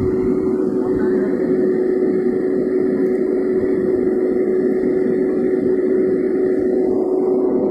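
Kubota crawler combine harvester running steadily while its unloading auger empties paddy into a tractor trolley: a constant engine drone with a steady whine over it.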